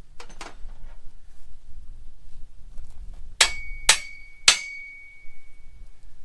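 Metal struck three times, about half a second apart, by what sounds like a hammer. Each blow rings with a clear tone, and the last rings on for over a second. Two faint clicks come just before.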